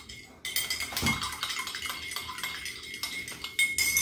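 A spoon clinking rapidly against a ceramic mug as salt is stirred in for a salt-water mouth rinse, with a few louder strikes that leave the mug ringing.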